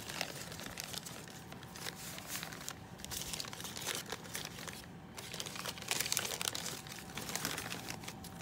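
Newspaper and paper-bag wrapping being unfolded and crumpled by hand, crinkling and rustling on and off, with brief lulls about three and five seconds in.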